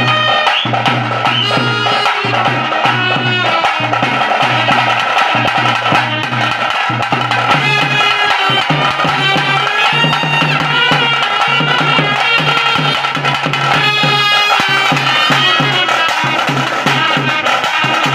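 Folk-style dance music with a steady drumbeat, a high melody and a repeating bass line.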